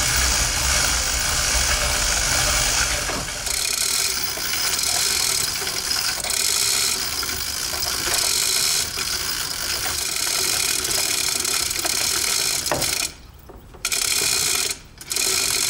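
Two manual chain hoists, each rated for 1000 kg, being hand-cranked to lift a boat hull: a continuous ratcheting clatter of pawls and running chain. It stops briefly twice near the end.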